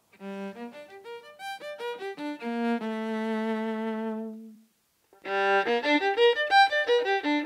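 A short violin phrase played on a purely electric violin with no sounding body: quick notes, then a long held low note. After a brief gap the same phrase starts again, now passed through a digital emulation of an acoustic violin's body.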